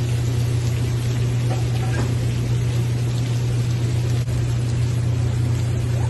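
Shrimp, vegetables and pasta sizzling in a frying pan over a gas burner, over a steady low hum. A short click about four seconds in.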